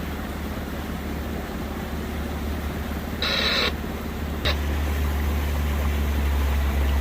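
Sailboat's engine running steadily under way, a continuous low hum. About three seconds in a short half-second hiss-like sound cuts across it, and at about four and a half seconds a sharp click, after which the hum is louder.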